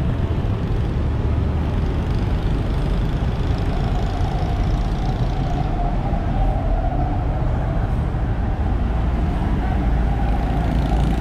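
Small truck's engine idling, a steady low rumble, with street traffic around it.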